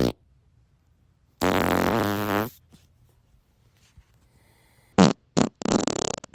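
A string of fart sounds. A long, pitched fart comes about a second and a half in. Near the end come two short blasts and then a longer, uneven one.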